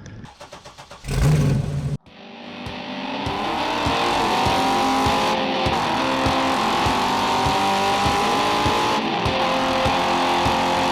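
Car engine pulling hard at high revs, its pitch rising slowly as it accelerates, with music mixed in underneath. A brief loud low blast comes about a second in, just before a sudden cut.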